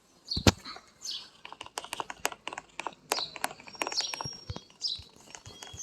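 A quick, irregular run of light clicks and taps, with short high chirps among them and a brief thin whistle about four seconds in.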